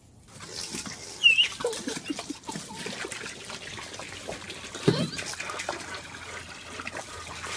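Water from a garden hose trickling and splashing into a plastic kiddie pool, with a child's short high squeal about a second in.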